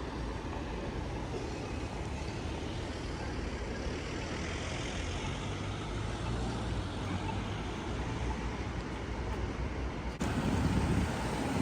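City street traffic: vehicles running past as a steady rumble, swelling for a few seconds midway. The background changes abruptly about ten seconds in.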